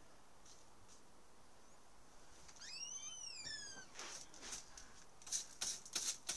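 Eagle calling from a tree: two high whistled notes that rise and fall, then a fast run of high chattering notes that grows louder toward the end.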